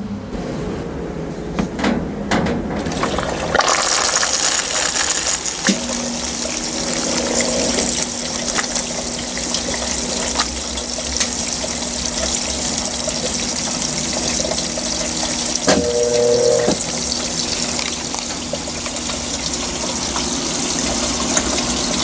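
Consul CWL16AB 16 kg top-load washing machine filling: after a few clicks, water starts rushing into the drum about three and a half seconds in, a steady splashing rush with a low hum joining soon after.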